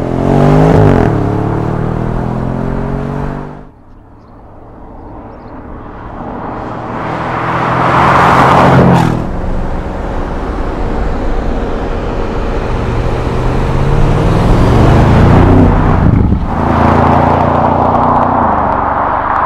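Audi S7 Sportback's twin-turbo V8 under acceleration, revving up through the gears. The sound drops suddenly about four seconds in, builds steadily as the car comes closer, then rises in pitch again as it pulls away.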